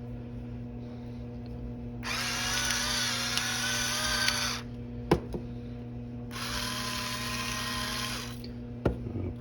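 Electric salt and pepper grinders running in two bursts of about two seconds each, seasoning a ribeye steak, with a sharp click between the bursts.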